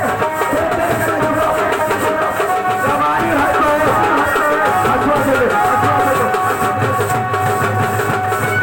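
Loud music with drums and a wavering melody line, playing steadily throughout.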